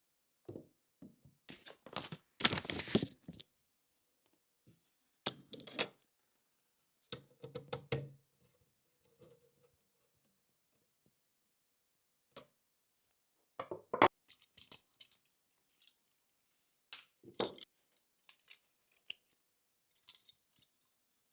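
Hands handling PC parts and packaging during assembly: scattered clicks, taps and knocks at irregular intervals, with a longer tearing rustle about two to three seconds in.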